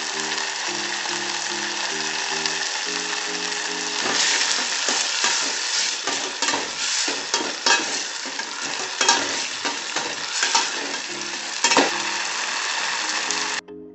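Tomato-onion sauce sizzling in a stainless steel pot with a steady hiss, as cornstarch slurry is stirred in to thicken it. From about four seconds in, a metal ladle stirs and scrapes against the pot in quick strokes. Soft background music plays at the start and again near the end.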